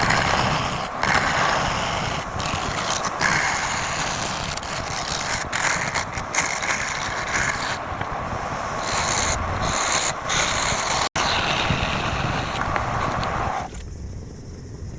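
Woodturning lathe with a tool scraping and rubbing against the spinning wood: a steady, rough, grainy noise. It cuts out for an instant about eleven seconds in and gets somewhat quieter near the end.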